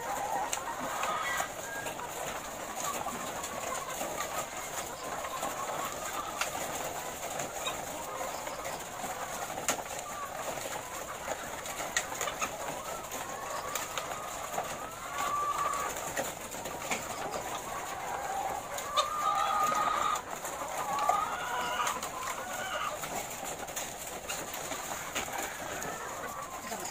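A flock of caged laying hens clucking and calling together in a dense, continuous chatter, with a few louder calls in the second half.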